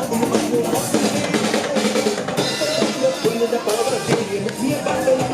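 Music led by a drum kit: bass drum, snare and rimshot hits in a busy beat over pitched instruments.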